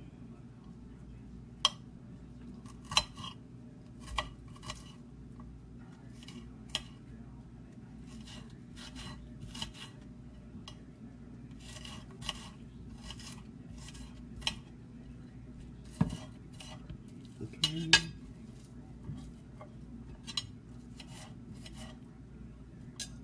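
A kitchen knife dicing onion on a glass cutting board: irregular sharp taps of the blade striking the board, some spaced out and some in quick little clusters.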